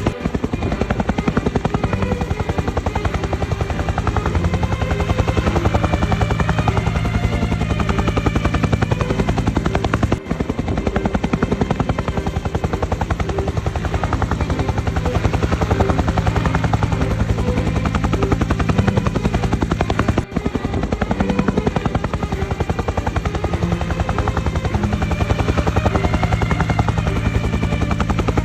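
Helicopter rotor blades chopping with a steady, rapid beat and engine noise underneath. The sound drops out briefly about every ten seconds.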